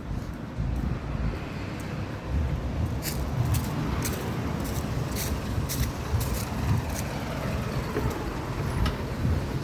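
Steady low rumble of road traffic, with scattered sharp clicks every half second to a second.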